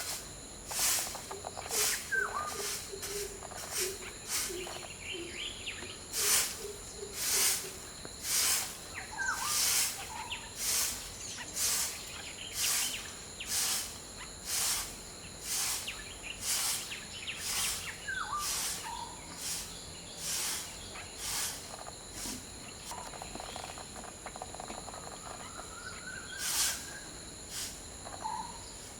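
Birds calling in an irregular series of short, sharp notes, with a few falling whistled notes mixed in, over a steady high-pitched insect drone.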